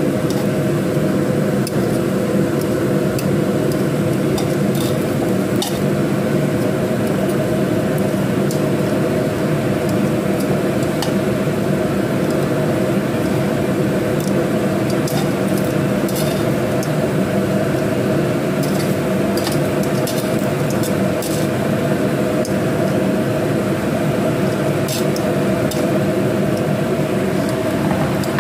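Slices of battered rice cake (kue keranjang) sizzling in shallow oil in a nonstick frying pan, with scattered small crackles and pops of spitting oil. Under it runs a steady hum, the loudest thing throughout.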